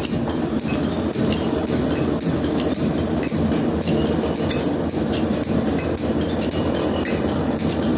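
Metal planer running under power, its tool cutting a steel flame-cut plate: a steady machine drone with many small, irregular metallic clicks as the chips break off and fall.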